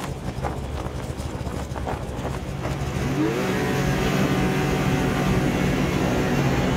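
Snowmobile engine revving up about three seconds in, its pitch rising, then running steadily at speed over snow. Before that, a low rumble with some faint rustling.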